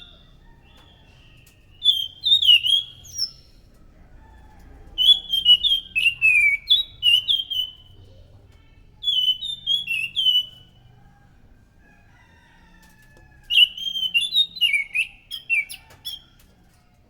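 Anis macan thrush singing: four phrases of quick, clear whistled notes with downward-slurring glides, separated by pauses of a second or two.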